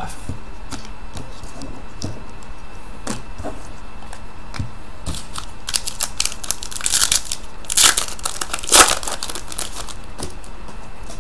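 Trading card pack wrapper being torn open and crinkled by hand. A few faint rustles, then a run of sharp crinkling bursts in the second half, the loudest near the end.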